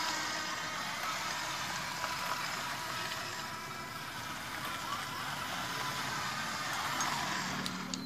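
Small DC gear motors of a two-wheel-drive Arduino RC car whirring steadily as the car drives, cutting off shortly before the end.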